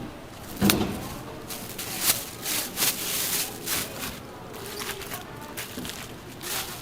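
Scattered sharp knocks and clatter of food being prepared and handled at a street toast stall, four or so distinct knocks over a few seconds against a low background of stall noise.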